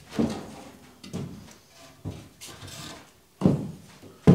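Rough-sawn wooden boards being handled and set down: a series of wooden knocks and scrapes about a second apart, the loudest thump near the end.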